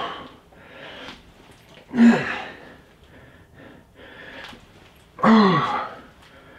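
A man grunting with effort during push-ups: a short strained grunt falling in pitch about two seconds in and another just after five seconds, with heavy breathing between.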